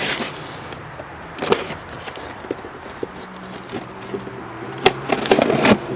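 A cardboard shipping box being opened by hand: scattered rustles with a few sharp clicks and knocks of cardboard and packing. The handling grows busier and louder near the end.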